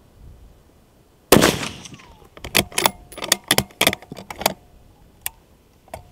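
Bolt-action rifle fired once, about a second in: a sharp shot with a short echo. The bolt is then worked: a quick run of metallic clicks and clacks as it is lifted, drawn back to eject the spent case and run home, with one last click near the end.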